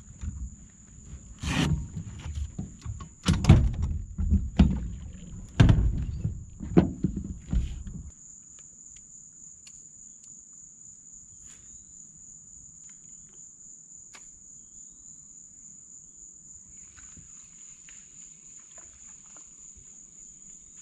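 Footsteps, knocks and thumps on a small boat's deck for about the first eight seconds as a person moves about and sits down, with a few sharp clicks among them. Then the boat goes quiet under a steady high insect buzz, typical of crickets or katydids.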